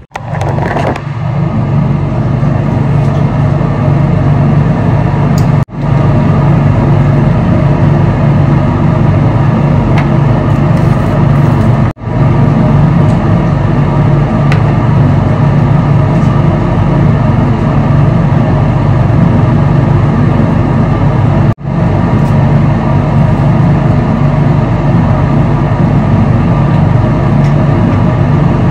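Loud, steady noise of a moving road vehicle, strongest in the low range, broken by three brief dropouts about 6, 12 and 22 seconds in.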